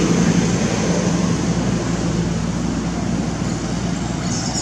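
Steady outdoor background noise with a low, steady hum, and a brief high-pitched sound about four seconds in.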